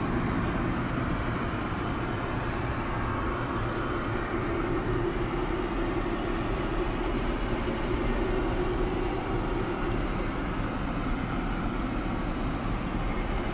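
Steady aircraft cabin noise inside a Boeing 787's crew rest compartment: an even, unbroken rush of air and machinery hum.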